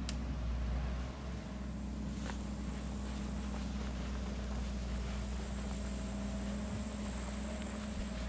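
Steady low hum of an engine running at a distance, unchanging throughout, with a short click about two seconds in.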